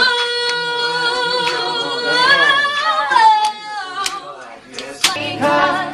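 A singer's voice in a slow R&B love song, holding one long note and then sliding down, over sharp clicks on a beat. Low instrument notes come in about five seconds in.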